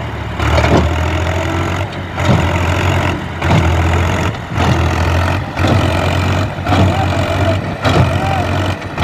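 Powertrac tractor's diesel engine running steadily, its sound dipping briefly about once a second. A wavering higher tone comes in and out near the end.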